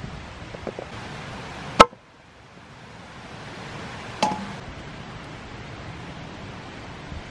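Two sharp knocks from butchering a lamb's head with a cleaver, about two and a half seconds apart; the second has a brief metallic ring, against a steady background hiss.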